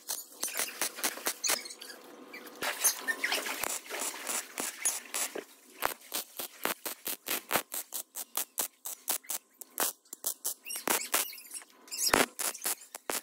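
MIG welding arc crackling on a steel square-tube frame joint: an irregular run of sharp pops and sizzle that starts and stops as short stitch welds are laid, with a brief gap near the end before it picks up again.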